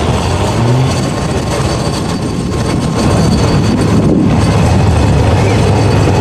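Tatra 815 6x6 truck's diesel engine running loud and steady under heavy load as the truck crawls up a steep dirt slope, getting a little louder about three seconds in.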